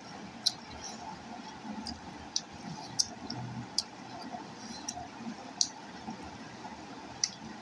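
Eating rice by hand from a ceramic plate: fingers mixing and scooping the rice, with short sharp clicks at irregular intervals, roughly once a second, over a faint steady hum.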